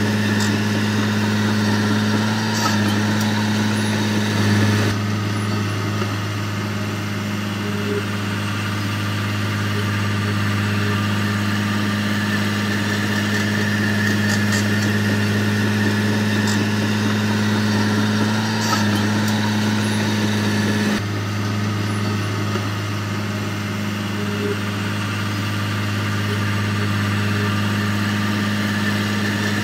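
Diesel engine of a heavy earthmoving machine running steadily at a constant low speed, with a few light clanks along the way.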